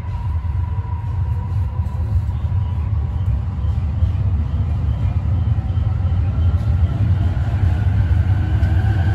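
E257-500 series electric limited express train pulling out past the platform, a steady low rumble heard through a train window. Near the end a motor whine rises in pitch as the train gathers speed.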